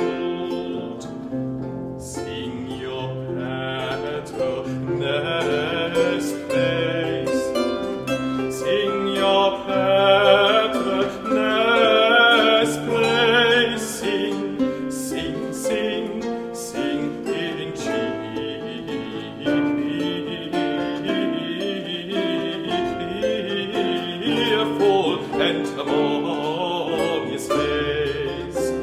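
A male voice singing a Baroque air with vibrato over a Baroque triple harp and lute, both plucked.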